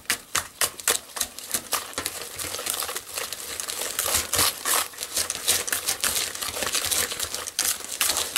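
Wire whisk beating eggs into melted butter and sugar in a plastic bowl, its wires clicking against the bowl's side about four or five times a second, then turning into a faster, steadier swishing after about two and a half seconds.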